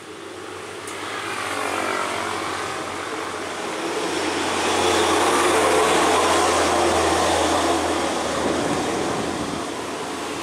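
A motor vehicle passing close by, its engine hum and road noise swelling over the first few seconds, loudest in the middle and easing off toward the end.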